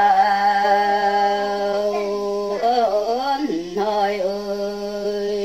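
A woman singing a Red Dao folk song (Pá dung) solo, with no accompaniment. She holds long, steady notes and breaks between them into short wavering, gliding ornaments. The last held note stops abruptly near the end.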